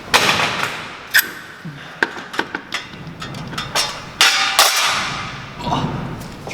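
Metallic knocks and clanks as the dual-mass flywheel is worked off an SR20 engine: a run of sharp knocks, with two longer noisy bursts at the start and about four seconds in.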